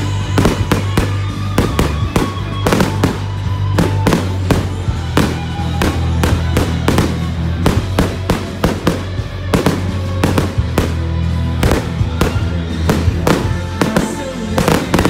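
Aerial fireworks going off in rapid, irregular bangs and crackles, a dozen or more in quick succession, over background music with a steady bass.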